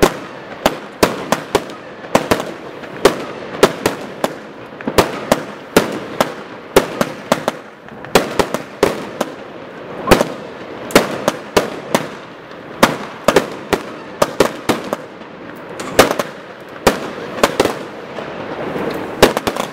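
Hydra series firework cakes firing a rapid barrage: sharp bangs of shots launching and bursting, about two or three a second, with crackling noise between them.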